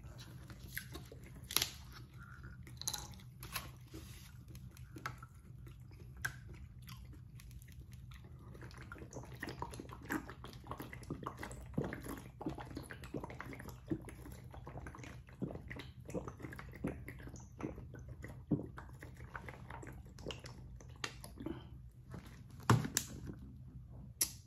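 Drinking from a disposable plastic water bottle: quiet, scattered clicks and crinkles of the bottle with mouth and swallowing sounds, and a sharper knock near the end as the bottle is set down on the metal table.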